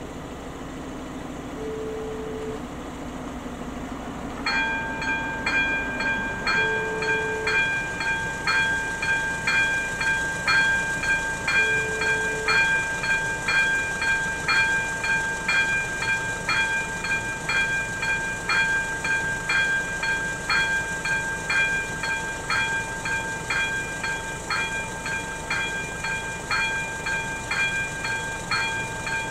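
Electric level-crossing bell (AŽD ZV-02) starting about four seconds in and ringing steadily, struck about twice a second. It is the crossing's warning that a train is approaching.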